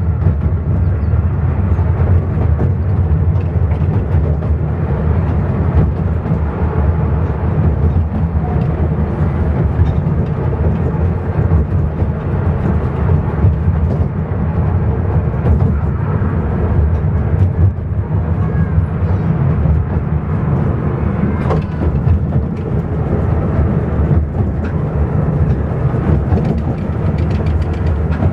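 A 15-inch gauge railway carriage running along the line, heard from inside: a steady low rumble of the wheels on the track, with a few faint clicks.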